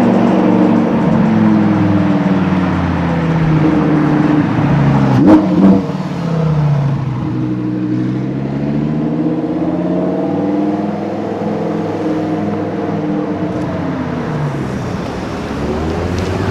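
Supercar engine revving and accelerating, its pitch swinging up and down as it runs through the revs, with a brief loud burst about five seconds in.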